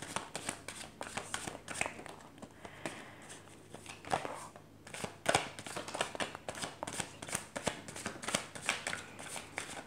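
A deck of oracle cards shuffled by hand, cards slid off from one hand onto the other: a quick, uneven run of soft card flicks and slaps. The run thins briefly a little before the middle, and the loudest slaps come around halfway.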